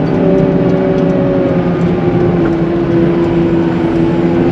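Caterpillar 906M compact wheel loader's diesel engine running hard under load while pushing heavy, wet slush. It gives a steady drone whose pitch sags slightly in the first second or two, then holds.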